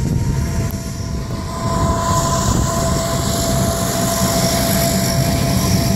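Turboprop aircraft taxiing: a steady engine whine in two tones over a low rumble, growing louder about two seconds in.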